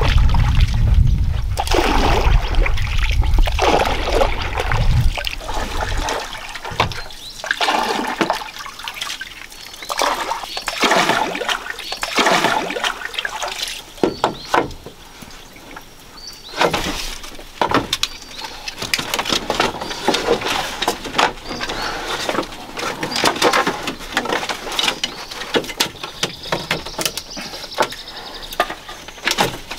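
Wooden paddle stroking through lake water: repeated swishes and splashes every second or two, with a low rumble over the first six seconds and light knocks in the second half.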